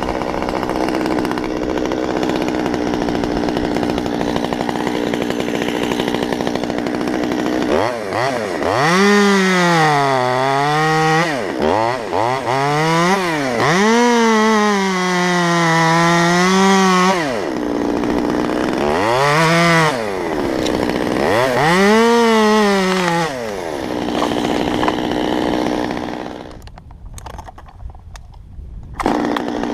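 Top-handle chainsaw idling, then revved in several bursts, each with its pitch sagging under load and picking up again, as it cuts tree limbs. The engine drops away for a couple of seconds near the end.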